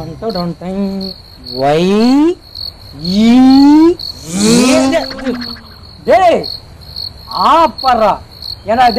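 Crickets chirping in a steady, evenly pulsing trill, with a man's loud wordless vocal sounds over it: long rising cries, then shorter rise-and-fall calls near the end.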